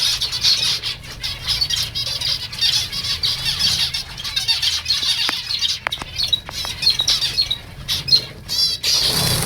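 A flock of zebra finches calling together, a dense, steady chatter of many short high calls, with a few sharp clicks a little past halfway.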